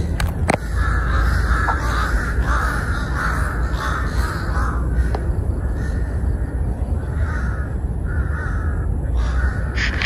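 A flock of crows cawing over and over, about two caws a second with calls overlapping, over a steady low rumble.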